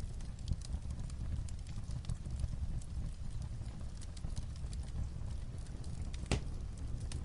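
Light rain on a roof, a steady low rumble, mixed with a wood fire crackling in a fireplace: scattered sharp pops and clicks, one louder pop about six seconds in.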